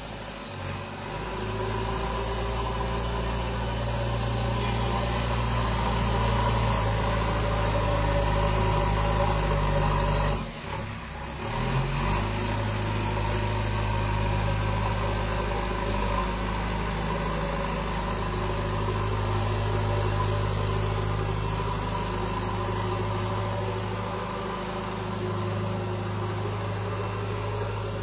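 Diesel engine of a backhoe loader running steadily at idle, with a brief dip in level about ten seconds in.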